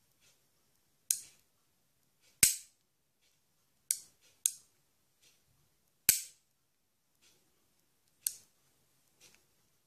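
Flobert revolver firing six sharp, small-calibre shots at uneven intervals, two of them noticeably heavier than the rest.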